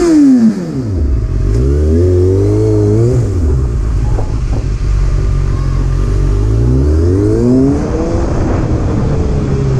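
Kawasaki ZX-6R's inline-four engine running under the rider at low speed, the revs going up and down with the throttle. A sharp rev at the very start drops away quickly, then the engine climbs and eases off twice more, once in the first few seconds and again near the end.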